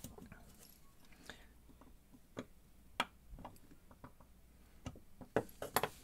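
Scattered light clicks and taps of small metal tools and a Miwa JN lock cylinder being handled during disassembly. They come irregularly, with a sharper click about three seconds in and a quick run of clicks near the end.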